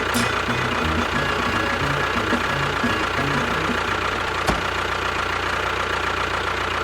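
Small motor of a miniature model tractor or bulldozer running steadily, with a thin steady whine and one sharp click about four and a half seconds in.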